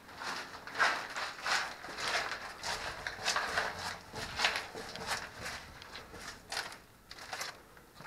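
Footsteps crunching over grit and debris on a concrete bunker floor, about two steps a second, growing softer near the end.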